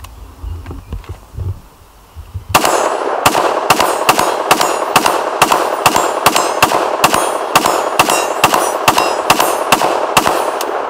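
Rapid semi-automatic fire from a 5.56 AR-style rifle, about three shots a second, starting between two and three seconds in. Each shot is followed by the clang of a hit on the thick AR-500 steel gong target, which rings.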